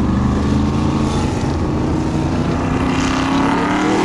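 Formula Offroad race car's engine running hard at high revs under full load as it climbs a steep sand slope, its pitch wavering and rising slightly near the end.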